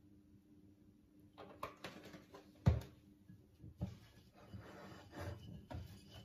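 Wire whisk beating a thick egg-yolk and flour batter in a ceramic bowl: irregular scraping and clicking strokes that start after about a second, with one sharp knock near the middle.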